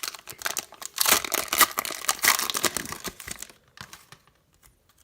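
A trading card pack's wrapper being torn open and crinkled by hand: a dense crackling rustle for about three and a half seconds, thinning to a few light ticks.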